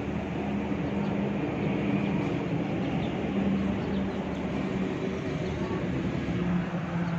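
A motor vehicle's engine running close by: a steady low rumble with a humming note that shifts in pitch.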